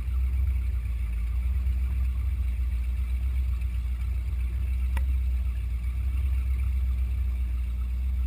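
Boat engine running with a steady low rumble. There is a single short click about five seconds in.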